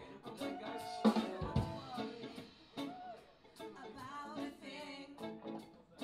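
Live band playing: electric guitars and a drum kit with group singing, with a regular drum beat.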